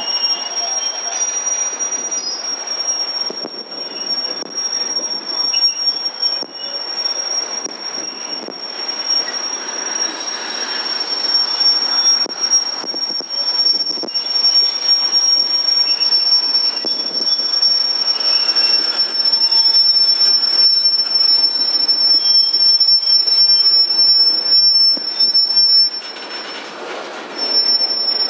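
Union Pacific freight cars rolling slowly on yard track, their wheels giving a steady high-pitched squeal over the rumble and clatter of the train. The squeal drops out briefly near the end, then returns.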